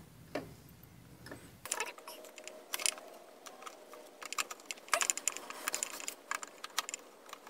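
Scattered light metallic clicks and clinks of a Sur Ron Light Bee's swingarm and belt-drive parts being shifted and handled by hand. The clicks start about a second and a half in and come unevenly from then on.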